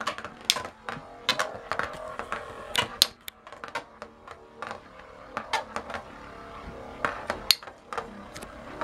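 Two Beyblade spinning tops, Tornado Pegasus and Tornado Lacerta, whirring faintly in a plastic stadium, with irregular sharp clacks as they knock against each other and the stadium walls.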